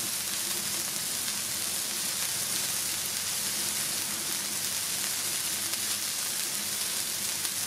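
Smashed burger patties sizzling on a hot flat-top griddle: a steady frying hiss as they sear on the first side before being flipped.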